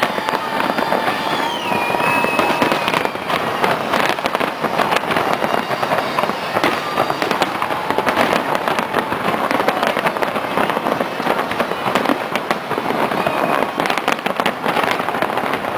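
A large aerial fireworks display: shells bursting and crackling densely and without a break, with a thin falling whistle about two seconds in.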